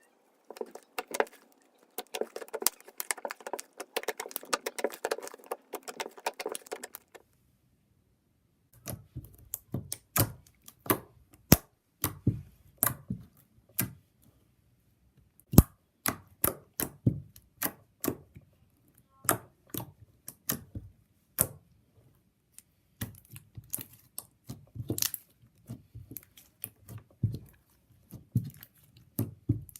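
Slime being squished and pressed by hand. It crackles densely for about seven seconds, then after a brief pause gives irregular sharp clicks and pops, some with a soft low thud.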